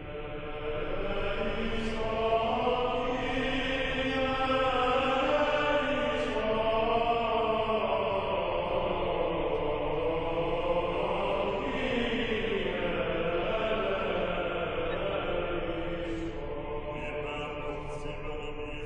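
A choir chanting slowly, with long held notes that move gradually in pitch, fading in over the first second.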